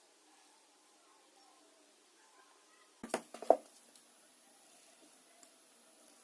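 Handling noise: a short cluster of sharp knocks and clicks about three seconds in, the last one the loudest.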